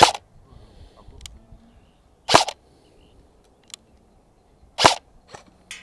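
Arcturus AK-12 airsoft electric rifle (AEG) firing three single shots about two and a half seconds apart, each a short sharp report, with a few fainter ticks between them.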